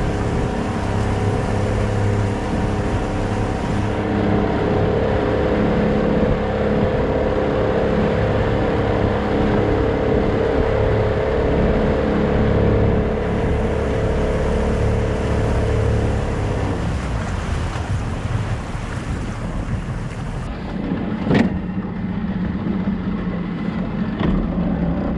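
Small motorboat's engine running under way, with a steady hum over the rush of wind and water. About two-thirds of the way in the engine note changes and drops lower, and a single sharp knock comes near the end.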